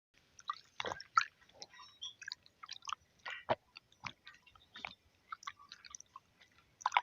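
A person chewing close to the microphone: a string of short, irregular mouth clicks and smacks, a few a second.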